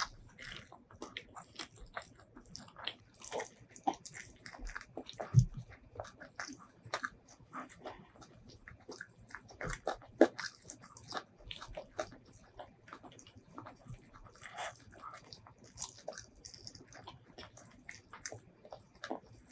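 Close-miked eating sounds: wet chewing and lip smacks of chicken biryani eaten by hand, with fingers squishing through the rice and tearing the chicken, as many irregular small clicks. One louder thump comes a little after five seconds.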